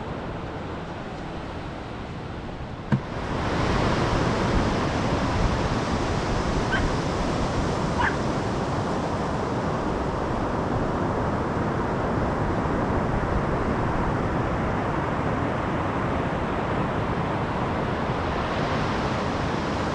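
Surf breaking on a sandy beach, with wind rushing on the microphone. It steps up louder after a sharp click about three seconds in and then stays steady.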